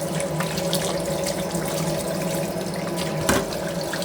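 Kitchen tap running steadily into a sink, water splashing, with a low steady hum under it and a brief knock about three seconds in.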